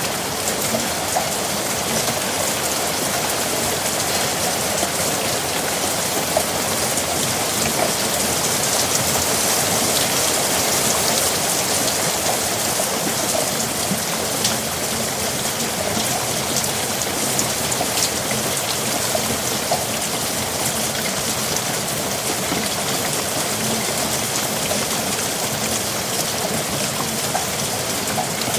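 Steady rain falling, with single drops ticking sharply now and then over the even hiss.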